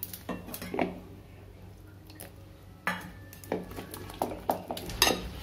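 A hand mixing a thick besan (gram flour) paste in a metal bowl. Irregular knocks and clinks sound against the bowl, the loudest near the end.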